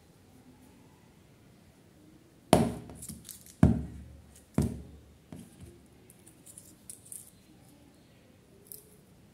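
Plastic jelly cups set down on a table: three sharp knocks about a second apart, then lighter clicks and taps of the cups being handled.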